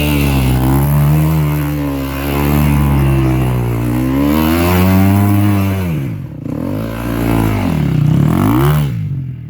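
KTM EXC-F 250's single-cylinder four-stroke engine, breathing through an Akrapovic exhaust, running with its pitch wavering. It is blipped up and down several times in the last few seconds before the sound cuts off suddenly.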